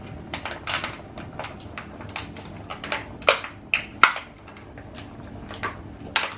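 Small plastic packet crinkling and crackling as it is squeezed and emptied of diced pancetta over a frying pan, in irregular sharp crackles, loudest about three and four seconds in.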